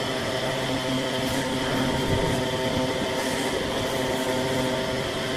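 Wood lathe running steadily, its motor giving a constant hum under a steady hiss.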